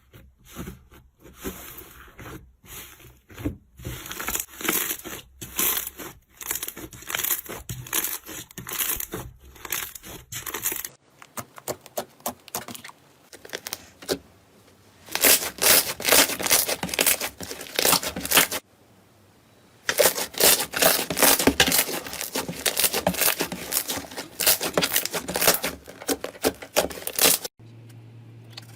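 Slime being squeezed and pressed by hand, a dense series of quick crackling pops in several short takes. The crackling is loudest in the second half, in two long runs.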